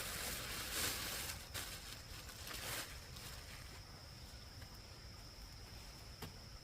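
Rustling and scraping handling noise with a few sharp clicks, which fades after about three seconds. From about a second and a half in, an insect keeps up a steady high-pitched drone on one unbroken tone.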